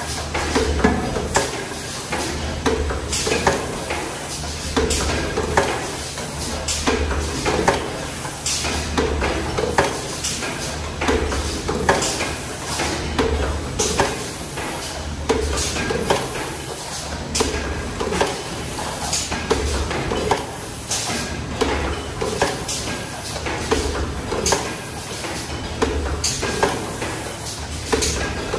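Automatic aluminium foil container press running through its cycle: a regular clatter of stamping strokes every second or two over a pulsing low hum.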